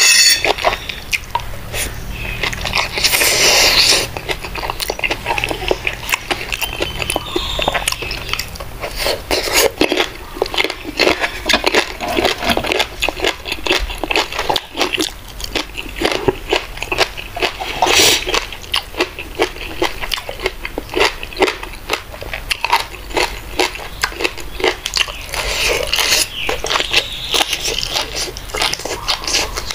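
A person chewing and eating bamboo-shoot salad close to the microphone: a steady run of quick wet clicks and crunching mouth sounds.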